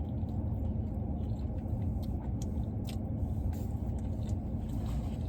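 Steady low rumble of background noise, with a few faint clicks and taps.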